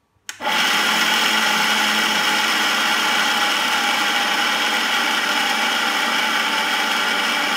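Electric blender motor switched on suddenly and running steadily at full speed, grinding powdered roasted peanuts with honey and oil into a paste for peanut butter.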